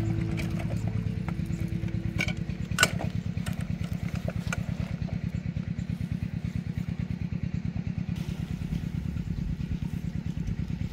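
An engine-like idle, a steady low running sound with a rapid even pulse, with a couple of sharp clicks about two and three seconds in.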